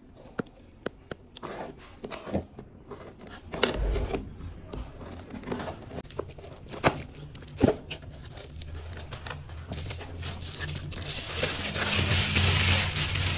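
A cardboard parcel being slit open and handled: scattered taps, scrapes and knocks on the box and tape. Near the end, plastic bubble wrap crinkles loudly as it is pulled out of the box.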